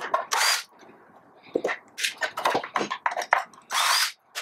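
Ridgid cordless drill spinning in two short bursts, one at the start and one about three and a half seconds in, as it backs screws out of a coffee grinder's base. Small clicks and knocks of handling come between the bursts.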